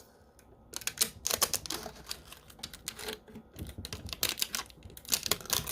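Protective plastic film being peeled off a new 3D printer, crackling in irregular bursts that start about a second in.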